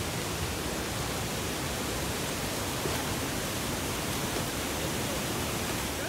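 Steady, even rush of Hogenakkal Falls pouring into the churning river below.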